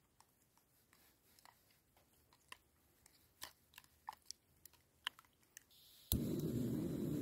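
A plastic spork stirring whitebait into beaten egg in a clear plastic container: light, irregular clicks and scrapes against the container. About six seconds in, a loud steady rushing noise cuts in suddenly.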